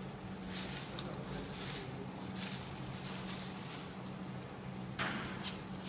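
Stamping machine running: a steady low hum, with a short hissing stroke about once a second as it cycles.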